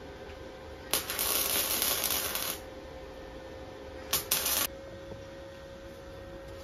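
Arc welding on a small steel part: one crackling, sizzling weld bead about a second in lasting about a second and a half, then two short tack-weld bursts around four seconds in. A faint steady hum sits underneath.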